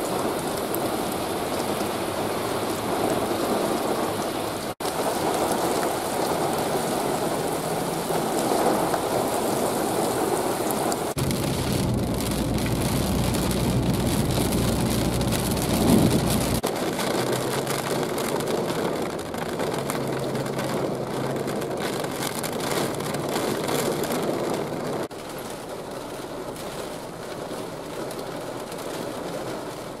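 Heavy rain pouring steadily in a thunderstorm, hissing on pavement and pattering on a car's windshield. For a few seconds in the middle it is joined by the low rumble of a car driving through the downpour.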